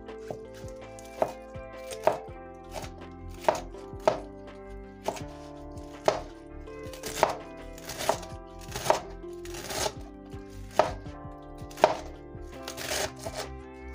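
Chinese cleaver chopping celery on a plastic cutting board: sharp knocks at an unhurried, irregular pace of about one or two a second. Soft background music plays underneath.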